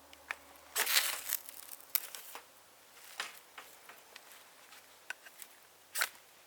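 Bark River Puukko's knife spine scraped along a ferro rod in several short rasping strokes, the strongest about a second in and the last near the end.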